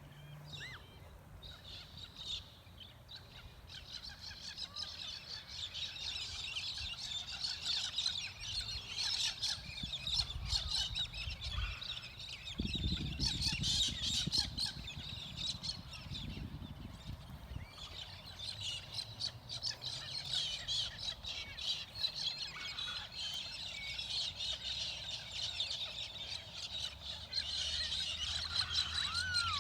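A flock of small birds chattering and squawking together, a dense mass of high overlapping chirps that builds up a few seconds in and keeps going. A low rumble sits underneath for a few seconds in the middle.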